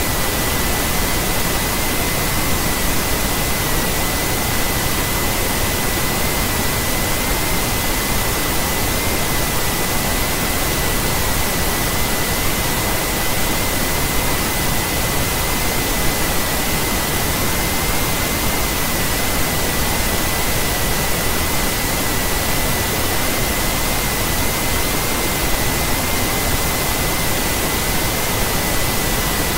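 Steady, loud hiss of microphone static with a thin, steady high-pitched whine in it.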